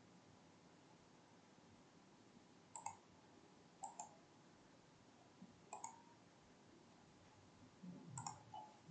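A handful of faint computer mouse clicks, a second or two apart, over near silence.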